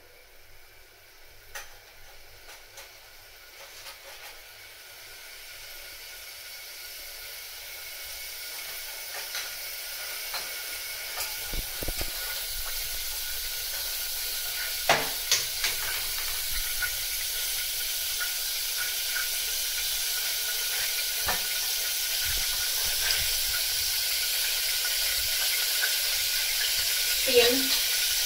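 Cooking oil heating in a pressure-cooker pot on a gas burner, a hiss that grows steadily louder as the oil comes up to frying heat, with scattered pops and crackles. A pot of liquid is boiling on the next burner.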